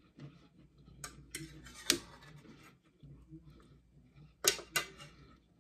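A metal fork clicking against a dinner plate: a few sharp clicks about a second in, the loudest near two seconds, then two more close together near the end, with quiet chewing between.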